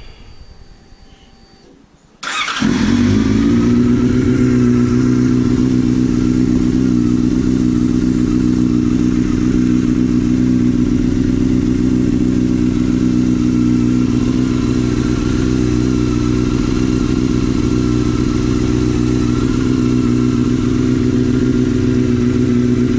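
2004 Yamaha R6's 600 cc inline-four engine starting up after an oil change. It catches about two seconds in and settles into a steady idle, running on fresh oil.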